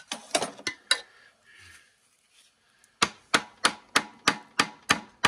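Hand tools worked against the copper windings of a large generator stator: scraping and a few metal clinks, then about three seconds in a steady run of sharp hammer blows, about three a second, driving a screwdriver into the windings to break loose coils that are stuck together.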